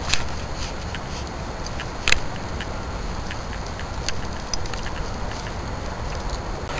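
Steady outdoor background rumble with scattered light clicks, and one sharper click about two seconds in.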